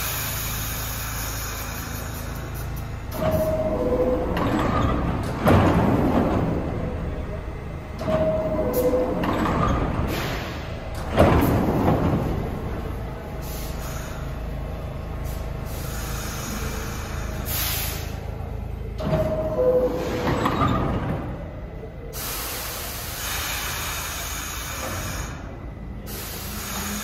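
New York City subway train's door chime, a falling two-note ding-dong, sounding three times, each followed by the doors sliding shut with a rush of air, over the steady rumble of the train standing in the station.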